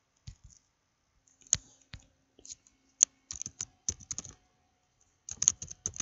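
Typing on a computer keyboard: a few scattered keystrokes, then two quick runs of key presses in the second half.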